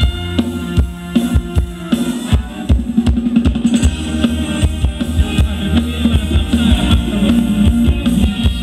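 Live band playing Thai ramwong dance music, driven by a drum kit keeping a steady beat on bass drum and snare, over sustained melody and bass.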